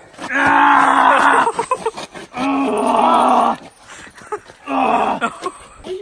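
Men's voices letting out three long, strained groans, about a second each, while heaving a heavy fridge-freezer.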